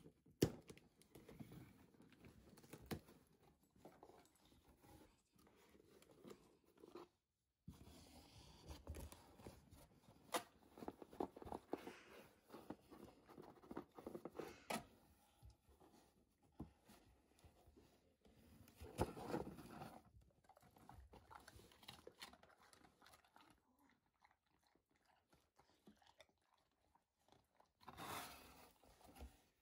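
Cardboard shipping box rustling and scraping as a yellow Labrador retriever noses into it among the flaps, in scattered quiet clicks and crinkles that come thickest in two stretches in the middle.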